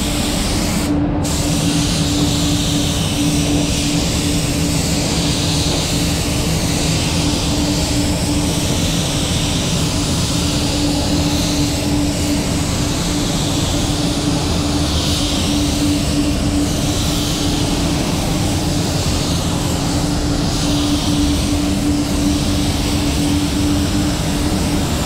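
Gravity-feed spray gun hissing steadily as compressed air atomises clear coat for a smooth first coat, the hiss cutting out briefly about a second in. A steady low hum runs underneath.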